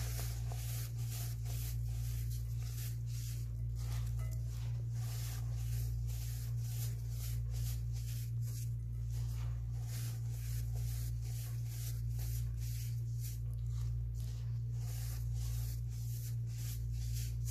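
Hands crumbling and rubbing blue-dyed baking soda chunks and powder in a glass bowl: continuous gritty crunching and rustling, several crunches a second, over a steady low hum.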